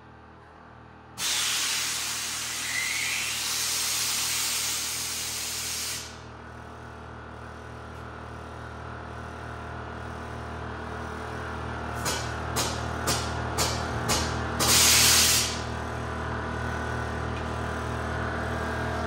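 Air-ride suspension lowering: air bags dumping through the management valves in a long hiss lasting about five seconds, then a run of about five short hiss blips and one longer hiss near the end as the truck goes down to its lowest height. A steady hum from the running onboard air compressor runs underneath.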